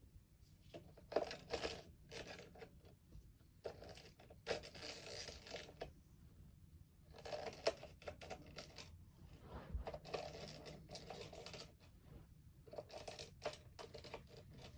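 Foam Nerf darts being pushed one at a time into a 10-dart clip magazine: short bursts of scraping and clicking every couple of seconds.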